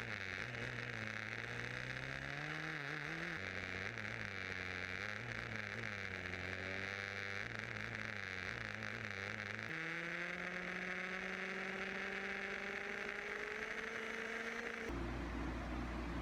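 Motor of a remote-control car running in traffic, a hum whose pitch rises and falls with speed. It jumps abruptly a few times and changes to a lower rumble near the end.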